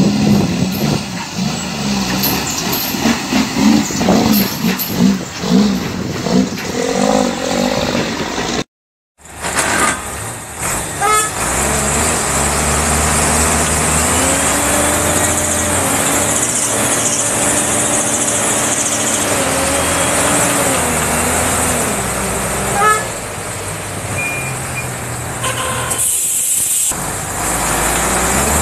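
Heavy diesel truck engines labouring in deep mud, with a hard cut a third of the way in. After the cut, one truck's engine revs up and down for several seconds as it pushes through the muddy water.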